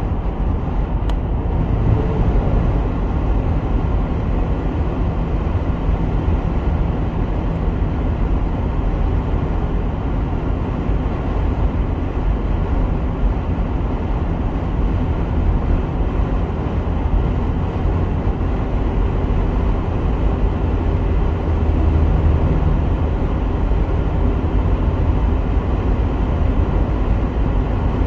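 Steady road noise of a car being driven: an unbroken low rumble of tyres and engine.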